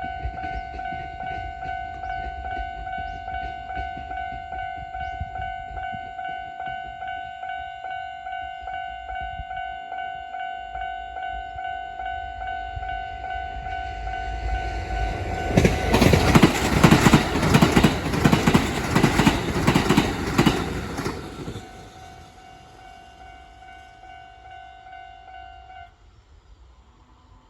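Japanese level-crossing warning bell ringing in a steady repeating pattern. An electric Kintetsu train runs loudly over the crossing from about 15 to 21 seconds in, its wheels clacking over the rail joints. The bell stops a few seconds before the end.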